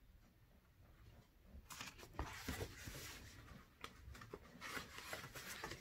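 Paper rustling and crackling as the pages of a picture book are turned and the book is handled, in irregular bursts that start about two seconds in after near silence.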